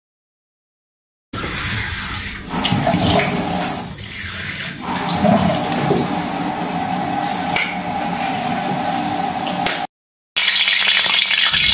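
Running tap water over crickets being rinsed in a plastic basket, starting about a second in and going on steadily. Near the end it gives way to hot oil sizzling in a wok.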